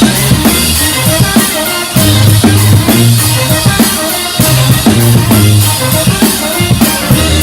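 Live brass band with a drum kit playing a beat-driven tune: snare and bass-drum hits over sustained low brass bass notes and higher melody lines.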